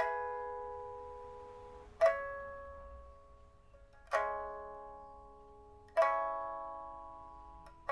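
Pipa with a newly replaced soundboard and frets, played slowly: a plucked note or chord about every two seconds, each left to ring and die away, with a fresh pluck right at the end. The instrument is a 1992 Man Ruixing pipa of aged Dalbergia oliveri wood, strung with a steel first string and copper strings.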